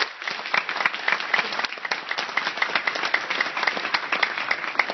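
Audience applauding: dense, continuous clapping from many hands, with one set of claps close by standing out at about four a second.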